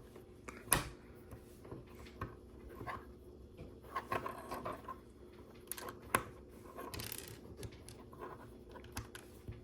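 LEGO plastic bricks being handled: scattered light clicks and clatter of small pieces, with soft rustling in between.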